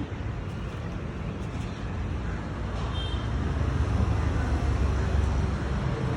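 Road traffic rumbling steadily as vehicles pass, growing louder from about two seconds in to around five seconds.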